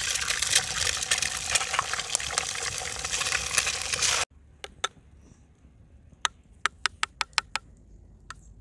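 Eggs sizzling and crackling loudly as they are cracked into hot oil in a frying pan. The sizzle cuts off suddenly about four seconds in. A series of short sharp clinks follows, from a spoon and fork against a dish.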